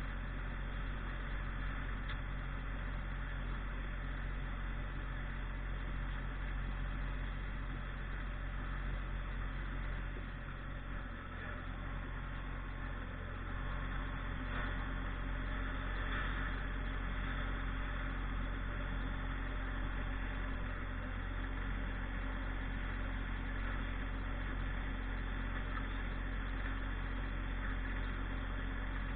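Tractor engine running steadily, a low even drone that eases slightly about ten seconds in.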